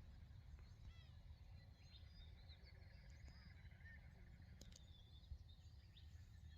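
Faint dawn birdsong in the desert: scattered short chirps and rising and falling whistled calls from several birds over a low steady background rumble, with one faint tick about five seconds in.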